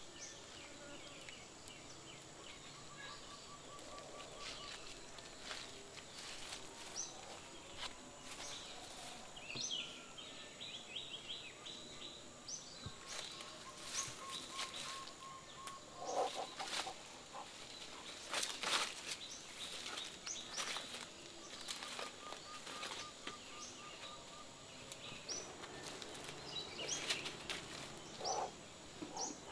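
Forest ambience: birds chirping in short calls and rapid trills over a steady high-pitched buzz, with scattered crackling and rustling in dry leaf litter.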